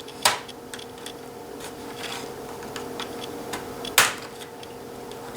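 Plastic tabs of a Dell Inspiron N4110 laptop's top case snapping loose as it is pried up with flathead screwdrivers: a sharp snap just after the start and a louder one about four seconds in, with faint scraping and ticking between.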